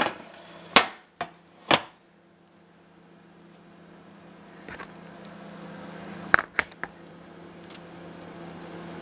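Sharp clicks and knocks of handling in a kitchen: four in the first two seconds, then three in quick succession about six seconds in. A steady low hum runs underneath.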